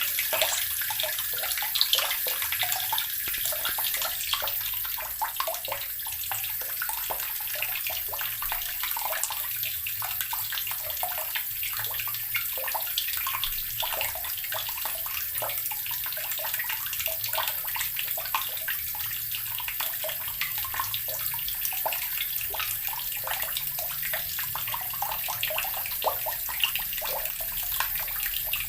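Water from a tap pouring into an earthen barrel, running steadily with a constant patter of small gurgles and splashes.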